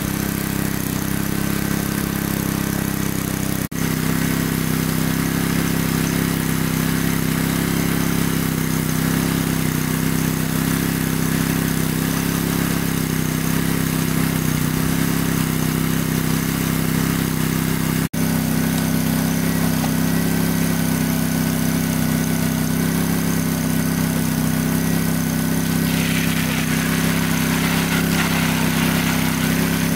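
Engine of a large water pump running steadily, with its sound briefly cut twice. A hiss joins it near the end.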